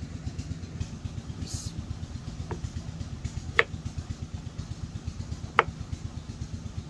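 A kitchen knife knocks sharply on a wooden chopping board while trimming a white radish: a faint knock, then two loud ones about two seconds apart. Underneath, a small engine runs with a steady low chugging throughout.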